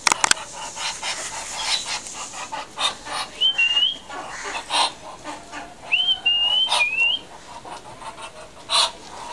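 Muscovy ducks making short breathy hisses, a few seconds apart, with a few short, thin, high whistled notes in two spells around the middle.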